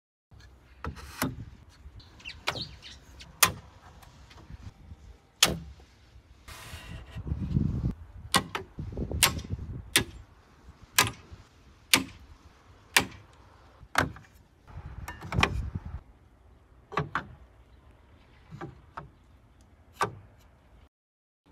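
Hand tools and wooden fittings being set into and taken from the racks of a wooden tool cabinet: a string of sharp knocks and clicks, about one a second through the middle stretch, with a few longer stretches of wood sliding and rubbing.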